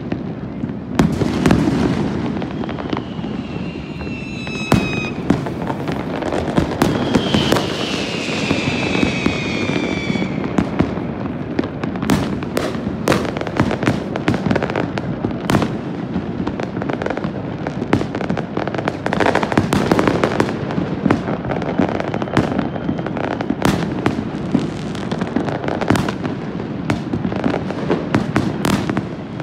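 Many New Year's fireworks going off across a city: a dense, irregular series of sharp bangs and pops over a continuous low rumble from distant bursts. Two whistling fireworks sound as falling whistles about three and seven seconds in.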